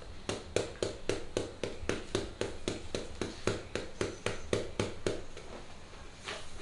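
Hands slapping rhythmically on a client's hand during a hand-and-arm massage. There are about four sharp pats a second, nineteen or so in all, and they stop about five seconds in.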